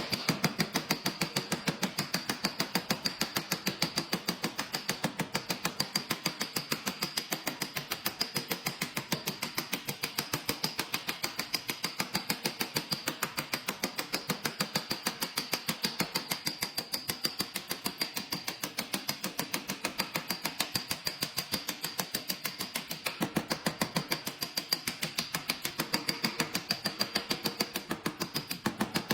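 Rapid, even tapping, about four to five light taps a second without pause: a paintless dent repair tap-down tool striking a car body panel.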